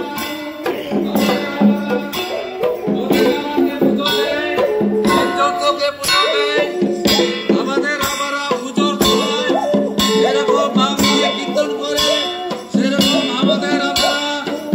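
Adivasi folk dance music: a sung melody over a steady beat of hand-played strokes on a two-headed barrel drum (mandar).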